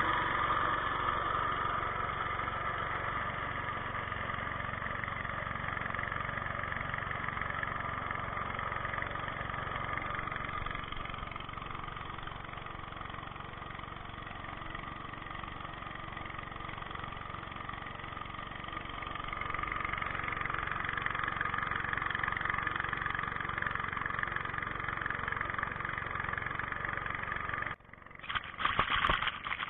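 Small air-cooled single-cylinder petrol engine driving a long-tail boat propeller, running steadily at speed with water rushing along the hull. About two seconds before the end it cuts to choppy splashing of water close to the microphone.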